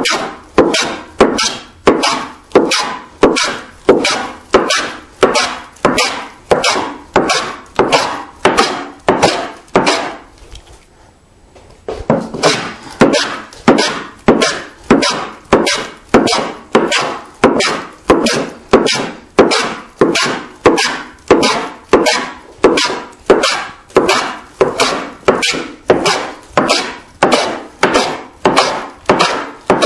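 Hand plane taking fast, heavy strokes across a rough-sawn board, about three shaving strokes every two seconds, each with a sharp start that dies away quickly. The plane is removing a thick layer down to a gauge line. The strokes stop for a moment about ten seconds in, then carry on at the same pace.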